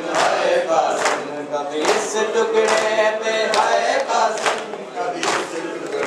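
A group of men chanting a Shia mourning lament (noha) in unison, with sharp chest-beating (matam) slaps keeping time, about one slap a second.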